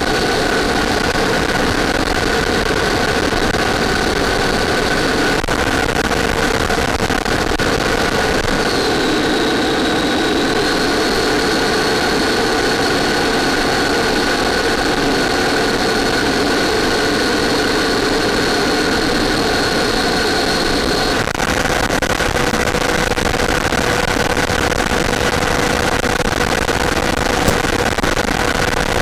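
Onboard sound of an RC model jet in flight: a steady motor whine over rushing air. A high tone dips and comes back up about nine seconds in, and the motor's pitch shifts about twenty-one seconds in.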